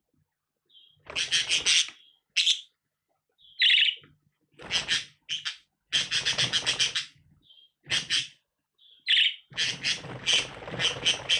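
Male budgerigar warbling: fast bursts of high chirps and chattering song with short pauses between them, starting about a second in.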